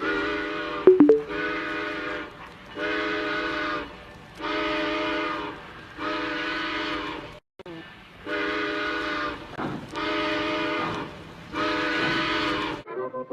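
Train whistle sounding a series of short blasts, each about a second long, every blast a steady chord of several notes at once. There is a brief break just past halfway, and a sharp click about a second in.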